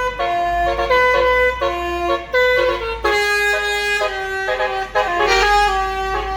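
Basuri telolet bus horn playing a quick tune of stepped notes that change every fraction of a second, over a low rumble.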